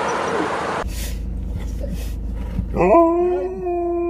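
An Alaskan malamute howling: from about three seconds in, one long howl that rises quickly and then holds a steady pitch. Before it, a steady hiss cuts off about a second in.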